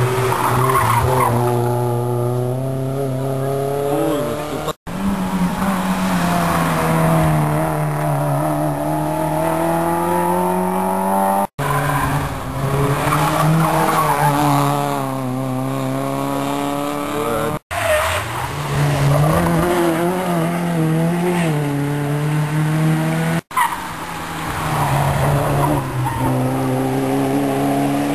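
Rally cars on a tarmac stage driven hard past the spectators one after another. Each engine revs high, its pitch rising and falling with gear changes and lifts off the throttle. The sound cuts off suddenly four times between one car's pass and the next.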